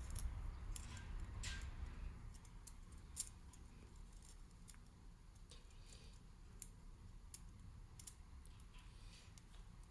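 Faint scattered metallic clicks and ticks of a piston's oil control ring being worked by hand into its groove, over a low steady hum.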